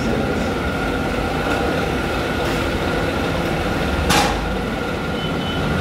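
Steady low rumbling background noise with a faint steady whine over it, and a short hiss about four seconds in.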